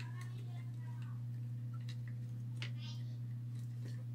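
A low, steady hum with a few faint clicks and light rustling as power-supply cables are handled over a motherboard.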